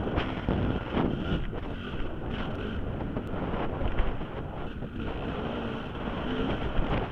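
Dirt bike engine running at speed under heavy wind buffeting on a helmet camera's microphone; the engine note shifts up and down through the stretch.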